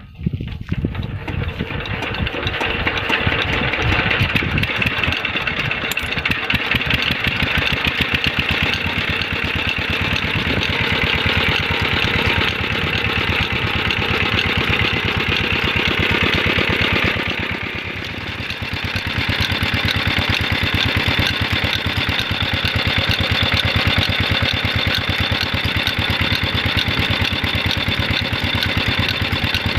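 Single-cylinder Peter diesel engine of a tube well catching as it is started, then running with a steady, rapid chug. Its sound drops briefly a little over halfway through, then carries on steadily.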